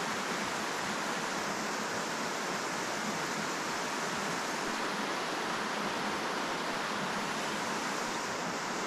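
River water flowing past, a steady even rush with no breaks.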